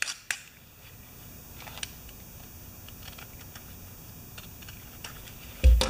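A knife blade scraping and clicking along the edges of a small folded piece of sheet metal, chamfering off the sharp edges: faint, scattered light ticks and scrapes. A dull low thump near the end.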